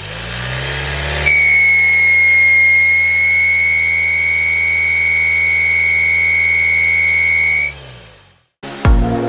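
Ford Ranger's turbocharged engine held at steady revs, with a loud steady high-pitched whistle that sets in about a second in and cuts off as the revs drop near the end: boost air escaping through a split intercooler pipe.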